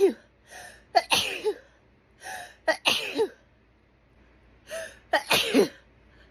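A woman sneezing over and over in a hay fever fit: three loud sneezes about two seconds apart, each after a quick gasping breath in.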